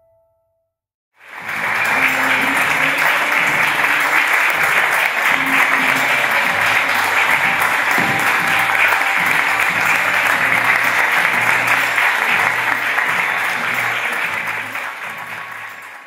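Audience applauding, starting suddenly about a second in and fading near the end.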